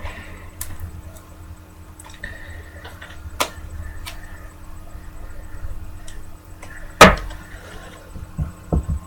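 Trading cards and plastic card holders being handled: scattered soft clicks and rustles, with one sharp knock about seven seconds in and a few lighter knocks near the end.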